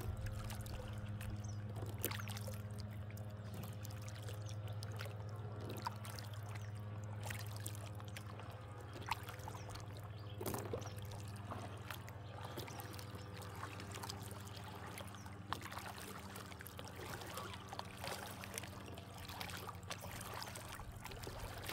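Kayak being paddled: water trickling and dripping off the paddle blades, with scattered small splashes and clicks. A steady low hum runs underneath.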